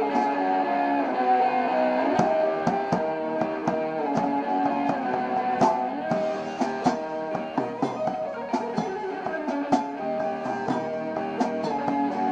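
Electric guitar playing, a run of picked notes and chords with sharp pick attacks.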